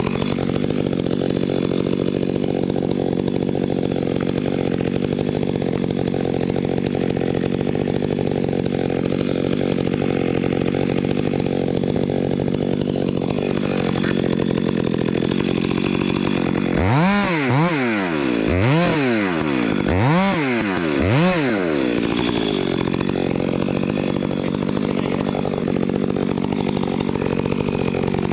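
Chainsaw engine running steadily at high revs, then revved up and back down four times in quick succession about 17 seconds in, before settling back to a steady high note.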